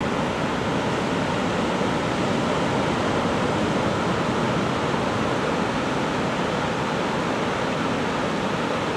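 Ocean surf breaking on the beach: a steady, even wash of waves with no single crash standing out.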